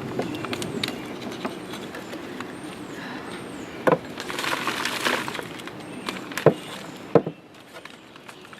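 Flower pots and vases being handled: a few sharp knocks and a short rustling scrape, with birds chirping in the background.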